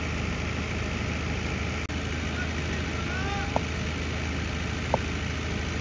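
A steady low engine hum under a constant rush of background noise, with two short clicks a little past the middle.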